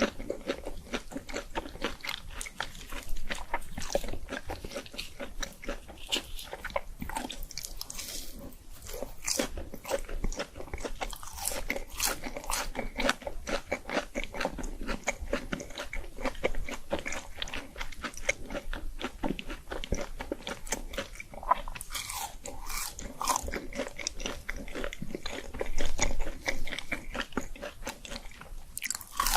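Close-miked biting, crunching and chewing of crispy fried food, a dense run of crisp crunches with a few louder bites.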